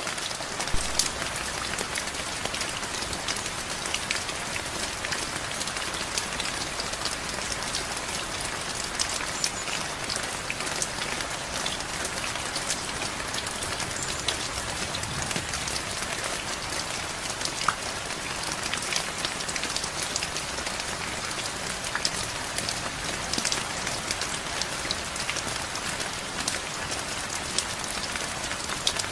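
Steady rain falling on a surface, a continuous hiss with many close individual drop ticks.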